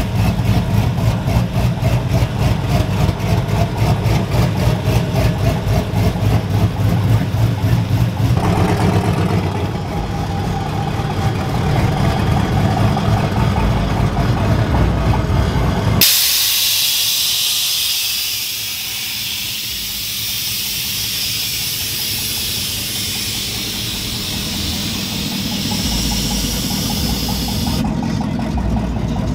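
Pickup truck engines running and idling with a steady low pulsing exhaust as lowered trucks roll by. About halfway through, a sudden loud air hiss starts and runs for about twelve seconds: air-bag suspension venting or filling, with an engine still idling underneath.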